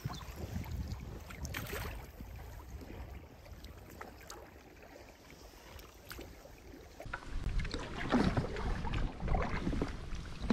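Paddle strokes and water splashing and lapping against a folding canoe's hull, under a low wind rumble on the microphone. It is quieter for the first several seconds, then louder and splashier from about seven seconds in.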